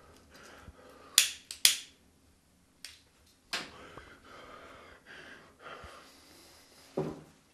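A cigarette lighter flicked several times to light a cigarette: sharp clicks in the first few seconds, the two loudest about half a second apart, then breathing as he draws on it, and a short thump near the end.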